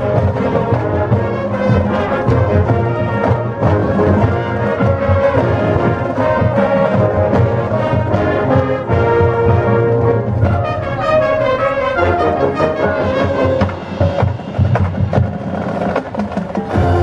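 High school marching band playing: brass section sounding sustained chords over drumline percussion, with sliding brass pitches after the middle.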